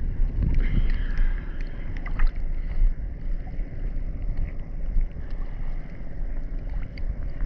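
Steady low rumble of wind buffeting the microphone over choppy sea water, with a few faint ticks.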